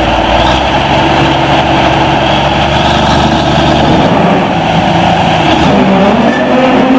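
Cummins 14-litre six-cylinder diesel engine of a 350 hp articulated tractor running hard under load.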